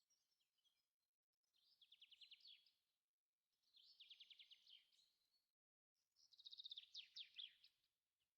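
Faint songbird song: three short trilled phrases of rapid, downward-sweeping notes, roughly two seconds apart.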